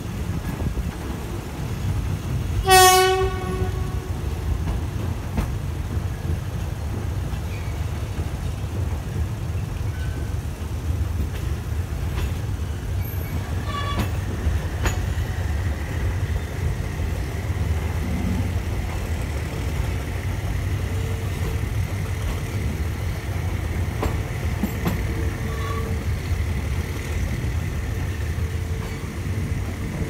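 Passenger train running along the line, heard from a carriage window: a steady low rumble of wheels and diesel locomotive. About three seconds in the locomotive sounds one short, loud horn blast, and a much fainter short note follows near the middle.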